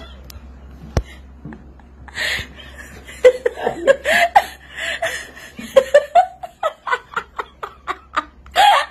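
Hearty, high-pitched laughter breaking out about two seconds in, in quick repeated bursts, with the loudest burst near the end.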